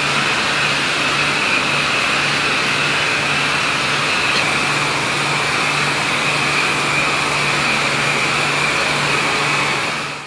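Steady mechanical drone with a hiss and a high whine, over a low hum that pulses about twice a second; it fades out quickly at the very end.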